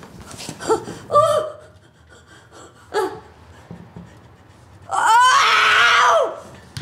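An elderly woman's voice: a few brief gasping cries, then about five seconds in a loud, long wailing cry that rises and falls in pitch.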